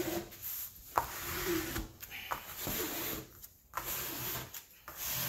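A ruler pushed and scraped across the paper-covered adhesive canvas of a diamond painting, several rubbing strokes with a couple of sharp clicks. The pressing flattens the adhesive so no bubbles form under the release paper.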